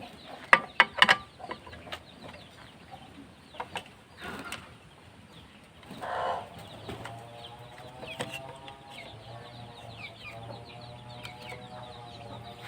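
A few sharp metal clinks about half a second to a second in, from a wrench tightening the bolt that holds a snail horn's bracket. Through the second half a drawn-out, wavering pitched sound continues, with short high chirps.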